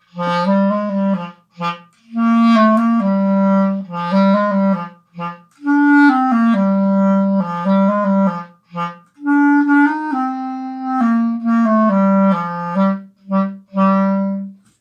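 Clarinet playing a simple tune, one note after another, in several short phrases with brief pauses between them.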